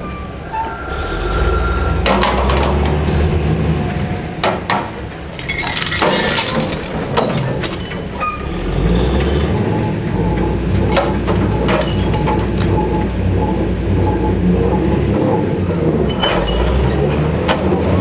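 Manitowoc 4600 dragline's bucket and drag chains scraping and clanking over broken rock as the bucket is hauled in, with sharp cracks and clinks at irregular intervals over a steady low rumble of the machine.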